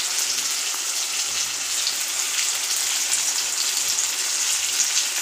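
Chopped onions and tomatoes sizzling in hot oil in a kadhai, a steady even hiss.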